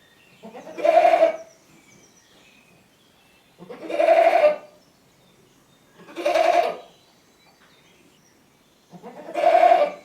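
A goat bleating four times, each call about a second long, with pauses of one to two seconds between them.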